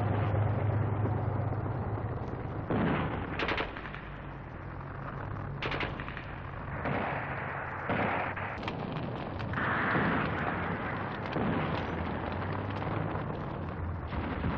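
Battle sounds on an old soundtrack: a low rumble of tank engines at first, then scattered gunshots and blasts spread through the middle.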